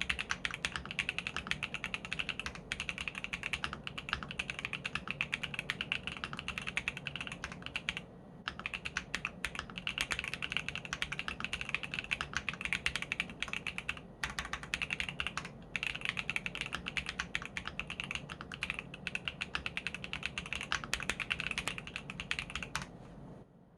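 Fast continuous typing on an Akko MonsGeek M1W mechanical keyboard with factory-lubed Akko Cream Yellow V3 switches, Cherry-profile dye-sub keycaps and a polycarbonate plate. Dense key clicks with two short breaks, stopping just before the end.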